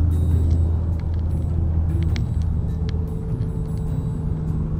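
John Deere Gator utility vehicle's engine running as it drives along, a steady low drone that eases off about three seconds in.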